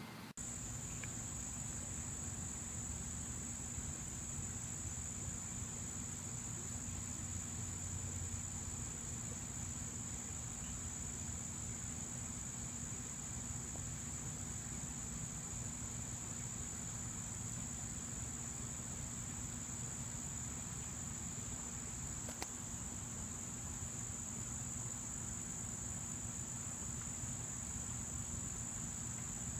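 A steady, high-pitched chorus of insects, such as crickets, in a late-summer yard, starting abruptly just after the opening and holding an even, unbroken pitch.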